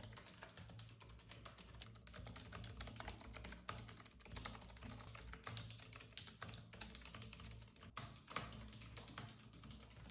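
Typing on a Keychron B33 low-profile wireless keyboard: a fast, irregular run of soft, quiet key clicks.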